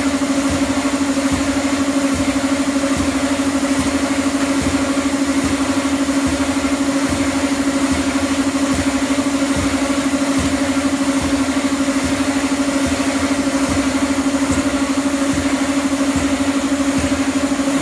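Escalator step-cleaning machine running on a moving escalator: a steady motor hum with a fast, even pulse.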